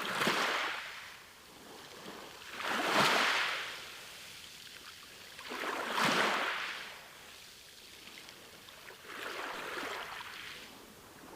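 Small sea waves breaking on a beach, each one swelling into a rush of foam and fading. Four waves come, about three seconds apart, and the last is weaker.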